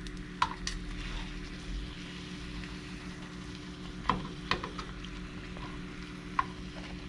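Flour tortilla frying in a small pan of hot oil, a steady sizzle, with metal tongs clicking sharply against the pan a few times as the tortilla is turned and folded into a taco shell.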